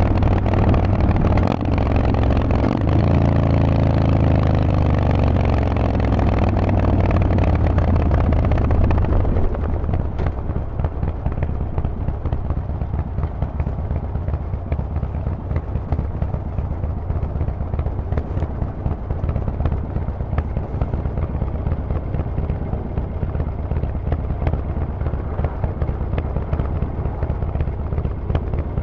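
Harley-Davidson Forty-Eight's 1200 cc air-cooled V-twin with a Vance & Hines exhaust running on the move, its note sliding down and back up over the first few seconds. About a third of the way in the exhaust note drops away to a quieter, rougher rumble that carries on steadily.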